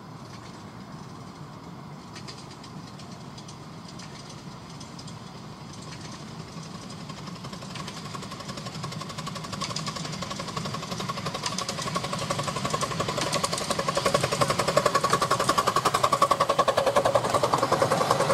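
A 10¼-inch gauge miniature railway train approaching and coming past, growing steadily louder, with a fast rhythmic clatter and a steady tone that strengthen in the second half.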